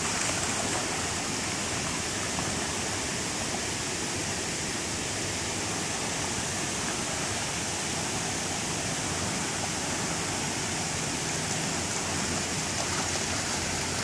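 Steady rush of shallow creek water running over rock ledges and riffles.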